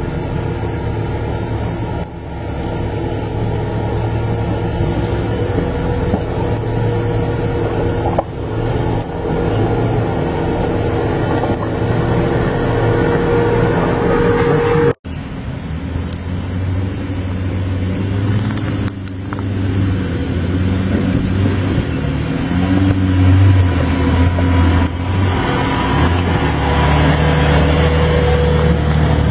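Lifted Jeep Cherokee XJ on mud tyres crawling over rocks in low gear, its engine running with the pitch stepping up and down as the throttle is worked. The sound cuts out for an instant about halfway, and grows louder and rougher near the end as the vehicle comes close.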